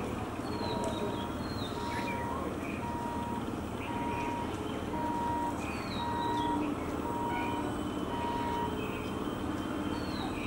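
An electronic beeper sounding a single steady tone about once a second, stopping a little before the end, over a low rumble of road vehicles, with birds chirping now and then.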